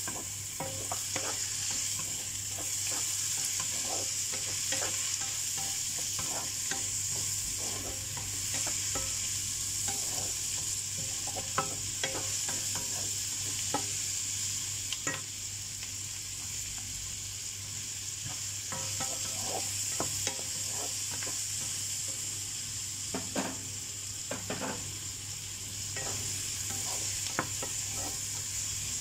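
Diced meat sizzling steadily in oil in a nonstick frying pan, stirred with a wooden spatula that scrapes and taps against the pan in irregular strokes. A steady low hum runs underneath.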